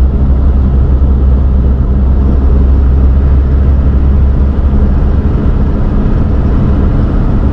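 Steady low rumble of a car driving along an asphalt road, heard from inside the cabin: engine and tyre noise.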